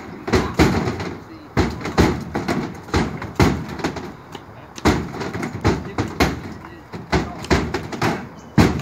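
Irregular knocks and thuds, about fifteen of them, of whole husked coconuts being flung with a pole into a pickup truck's bed and landing on the metal and on other coconuts.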